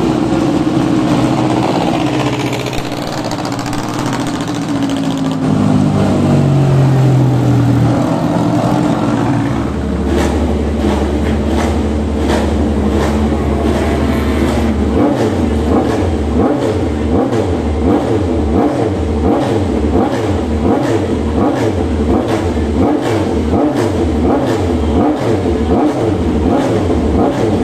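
Racing motorcycle engines in a pit lane: an engine note falling in pitch over the first several seconds as a bike goes by. This is followed by a steady low drone and, from about ten seconds in, a regular pulsing about twice a second.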